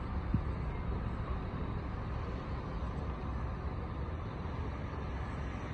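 Steady low outdoor rumble with no distinct events, the kind of background made by traffic or wind around a phone microphone.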